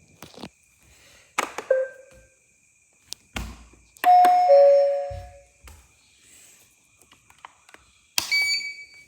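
Robot vacuums being started one after another: button clicks, each followed by a start-up chime or beep. The loudest is a two-note falling chime about four seconds in, and another chime sounds near the end.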